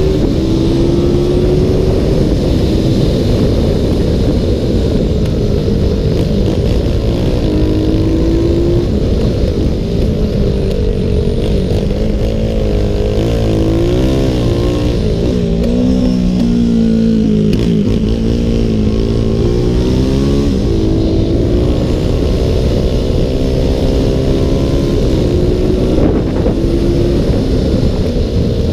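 Onboard sound of a CG-class racing motorcycle's single-cylinder engine held at high revs. Its pitch climbs and drops repeatedly, wavering up and down through a slower section about halfway through, over a steady rush of wind noise.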